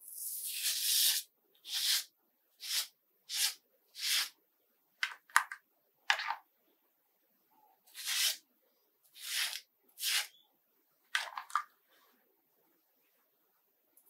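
A razor scraping over a foam-lathered scalp in short strokes: about eleven quick scratchy hisses with brief pauses between them, the first and longest lasting about a second.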